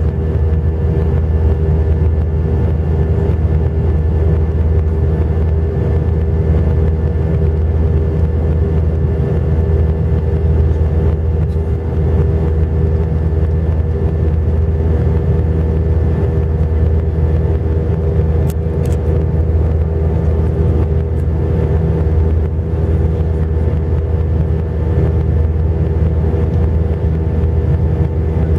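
Airbus A320 cabin beside its IAE V2500 turbofan engine during the climb: a steady, loud low rumble with constant engine hum tones over it.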